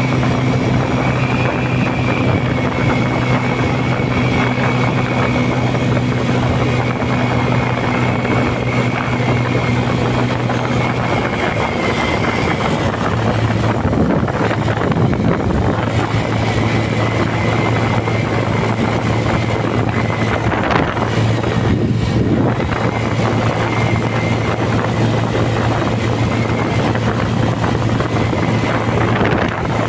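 Bajaj Pulsar LS135's single-cylinder engine running steadily at a highway cruise of about 80 km/h. The engine note shifts briefly about halfway through, then settles again.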